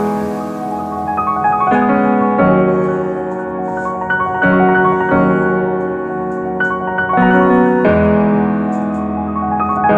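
Background piano music, with notes and chords changing every second or so.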